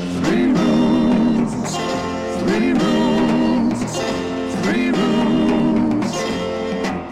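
Band music from a 1965 pop single, playing its instrumental intro: a swooping phrase that repeats about every two seconds over a steady backing.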